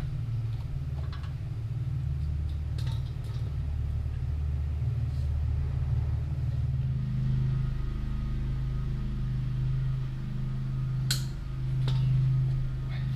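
A steady low machine hum. It shifts to a slightly higher, steadier pitch about seven seconds in, and a sharp click sounds near the end.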